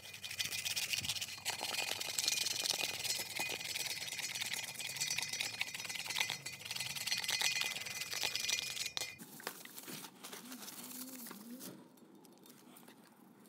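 A scraper rasping over WD-40-soaked sticker adhesive on the air compressor's body, in rapid scratchy strokes. About nine seconds in the scraping stops and it goes much quieter.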